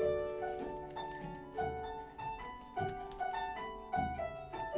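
Harp and fiddle played pizzicato together, plucking out a tune in a run of ringing notes.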